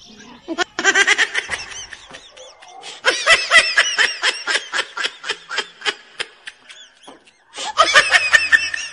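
Human laughter in rapid 'ha-ha-ha' runs: a short run about a second in, a longer one from about three seconds to six and a half, and another near the end.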